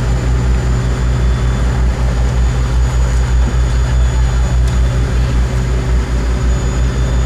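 Sportfishing boat's engines running steadily under way: a deep, even drone with a quick, regular pulse in it.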